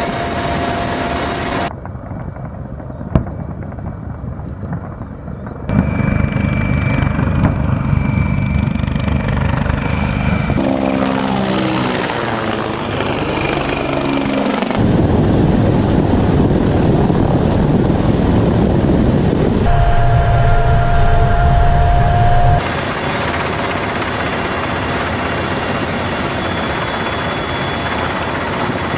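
Mi-24 attack helicopters in flight: the thudding of the main rotor over the whine of their twin turboshaft engines, in several clips with sudden changes in loudness between them. A high turbine whine falls in pitch about halfway through as one passes.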